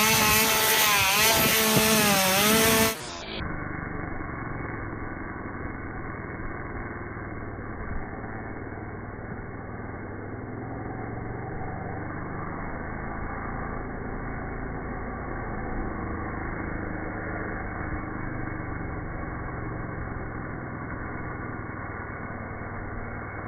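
Chainsaw running, its pitch rising and falling as it revs. About three seconds in, it drops to a deep, muffled, steady rumble: the chainsaw's sound slowed down for slow motion.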